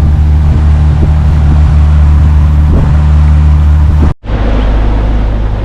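Pontoon boat's outboard motor running at a steady cruising drone, with water and wind noise over it. About four seconds in the sound breaks off for an instant and comes back as a lower, rougher drone.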